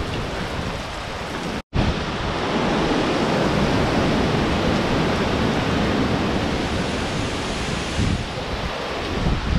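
Hurricane wind and rain: a dense, steady rush of storm noise with wind buffeting the microphone. The sound cuts out for an instant at an edit about two seconds in, then comes back louder.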